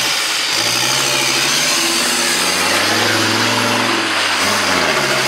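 Off-road 4x4's engine revving hard while its mud tyres spin and throw mud; the revs climb for a few seconds, drop about four and a half seconds in, then pick up again.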